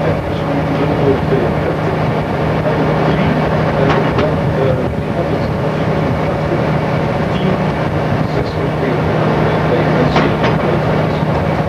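Ship's generator running with a steady mechanical drone and a constant low hum.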